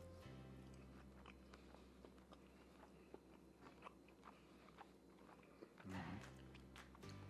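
A man biting into a smoked, glazed pork rib and chewing it: faint, scattered wet clicks of chewing, with a louder moment about six seconds in.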